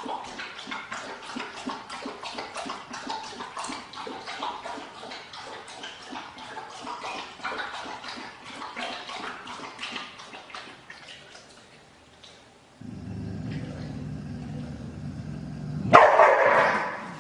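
A dog making quick, repeated sounds, several a second, for about twelve seconds. Then a steady low hum, and a loud, sudden sound about three seconds before the end.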